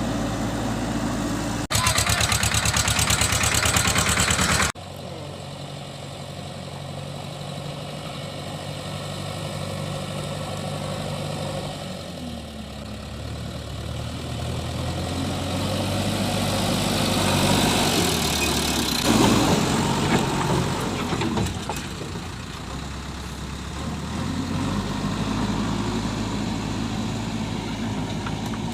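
Diesel engine of a JCB 3DX backhoe loader running, its speed rising and falling as it works. Near the start there is a loud burst of rapid rattling for about three seconds.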